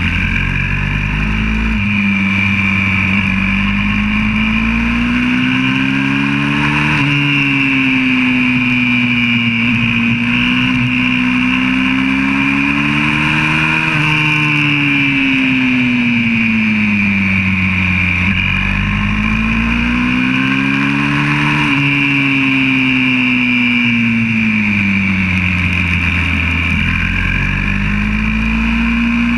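Single-cylinder four-stroke engine of a YCF 125cc pit bike heard from onboard, its revs climbing and falling in long sweeps as it accelerates and slows through corners, dropping sharply three times. Under it runs a steady high wind rush.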